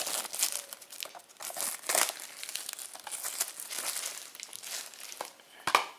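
Clear plastic shrink-wrap being peeled off a Blu-ray case and crumpled in the hands: an irregular crinkling and crackling, with sharper crackles about two seconds in and again near the end.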